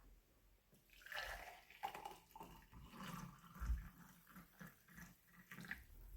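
Water poured from a jug, faint and irregular, starting about a second in.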